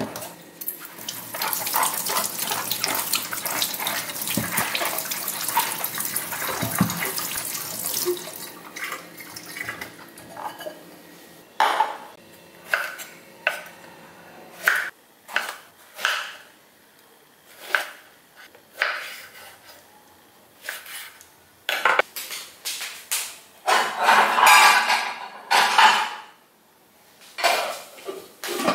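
Tap water running into a stainless-steel sink while produce is rinsed in a glass bowl, for about the first ten seconds. After that a kitchen knife cuts eggplant on a wooden cutting board in separate knocks about a second apart, with a longer clatter of kitchenware near the end.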